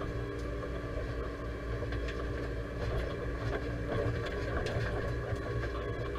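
Deutz-Fahr 5100G tractor engine running steadily while driving, heard from inside the cab, with a few light clicks and rattles.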